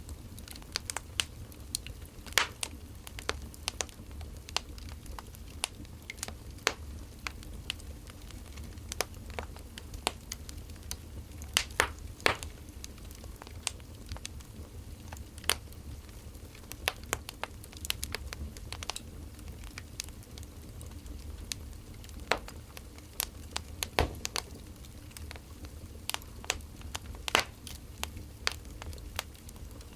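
Wood fire crackling: irregular sharp pops and snaps, a few louder ones scattered through, over a steady low rumble.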